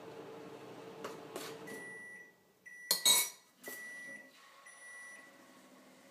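Kitchenware clinking and knocking: a few light clicks, then a loud cluster of sharp clinks about three seconds in and one more shortly after. A steady appliance hum stops about two seconds in, and a thin high tone comes and goes.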